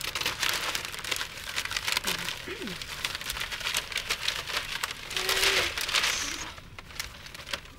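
Newspaper pages rustling and crackling as the paper is opened and leafed through, dying away near the end.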